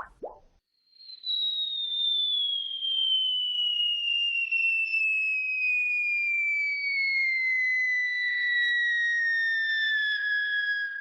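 Cartoon whistle sound effect: one long whistle starting about a second in and gliding slowly down in pitch for about ten seconds, with fainter higher overtones and a faint crackle beneath, stopping suddenly at the end. It is the falling whistle that cartoons use for a dropping bomb or a long fall.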